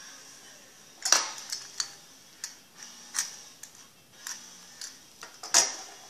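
Irregular sharp clicks and taps of wooden clothespin pieces being handled, about ten in all, the loudest about a second in and near the end.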